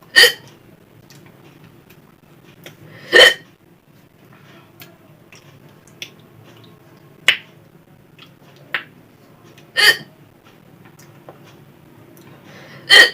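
A person hiccupping: four loud, sharp hiccups at uneven gaps of a few seconds, with two fainter ones between them.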